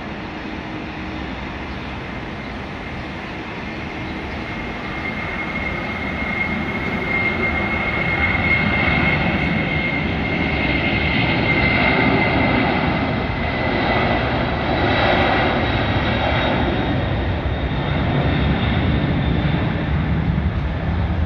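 Boeing 747-400 freighter's four jet engines at takeoff power during its takeoff roll. The noise grows louder over the first several seconds as the jet comes past, with a high whine strongest in the middle, then stays loud.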